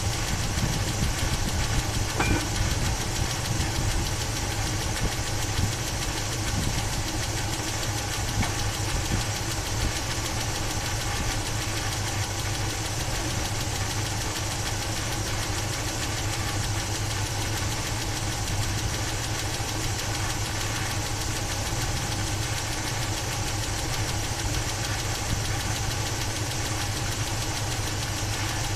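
Chevy 350 small-block V8 idling steadily with the air cleaner off. It has a top-end noise that the owner takes for a bad valve rather than lifter tick, and hopes is only old gas.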